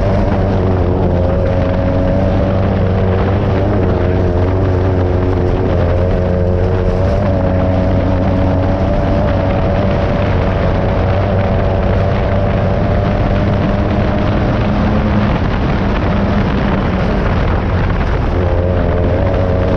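Class 9 race buggy's air-cooled Volkswagen engine running hard at fairly steady revs, the pitch wavering slightly, over a dense rushing noise of the car on the move.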